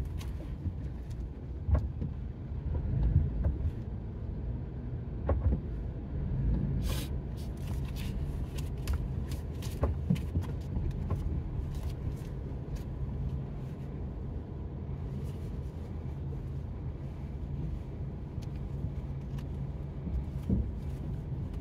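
Car running at low speed, heard from inside the cabin: a steady low engine and road hum with a few light knocks and clicks.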